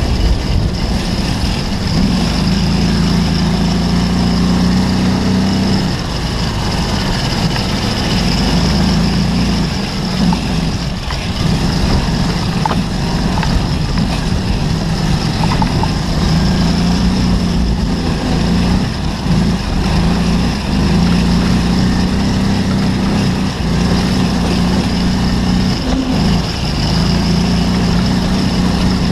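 Amis Kennedy off-road buggy's engine running steadily at speed under load, its note dipping briefly several times.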